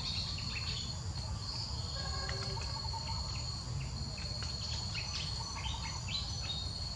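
A steady, high-pitched insect chorus, with short bird chirps scattered through it and a low rumble underneath.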